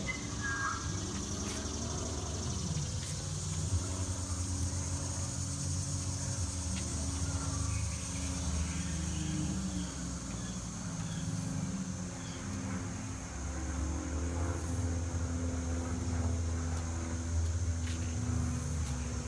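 Outdoor ambience: a steady low mechanical drone with a continuous high insect buzz over it.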